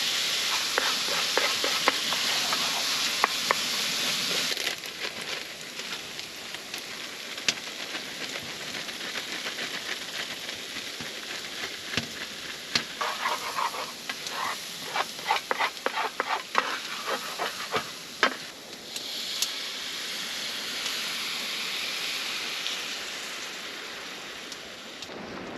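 Food frying in a pan: a steady sizzle, broken by many sharp clicks and scrapes of a utensil stirring in the pan through the middle, with the sizzle swelling again later on.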